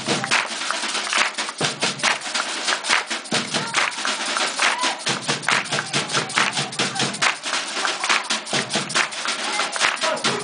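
Percussion group playing a fast, dense rhythm of sharp strikes.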